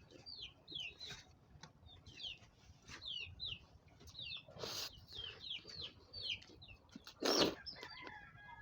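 Small chicks peeping: a steady run of short, high, falling cheeps, several a second. Two brief louder noises break in, near the middle and about three-quarters of the way through.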